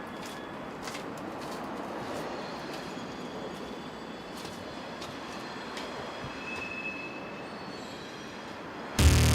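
A train rolling past with a steady rumble, and a brief high wheel squeal about seven seconds in.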